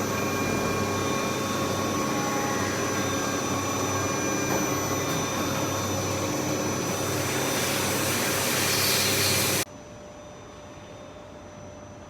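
CNC machine running in a machine shop: a loud, steady hiss with several high steady whines over a low hum, swelling slightly before cutting off suddenly near the end to a much quieter steady hum.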